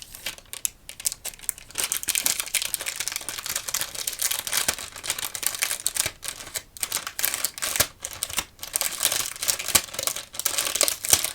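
Crinkly plastic packaging being handled close to the microphone: dense crinkling made of many small crackles and clicks. It is sparser at first and fills in to a steady crinkle about two seconds in.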